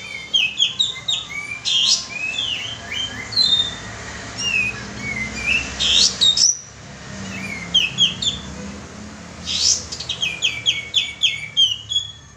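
Kapas tembak bird song played as a lure call: quick bursts of bright chirping, slurred notes, broken by a short pause midway. Near the end comes a fast run of evenly repeated notes.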